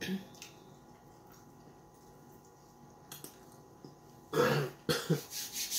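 A man clears his throat, loud and short, about four seconds in, with a shorter follow-up right after. Before that there is only faint room tone with a few small clicks.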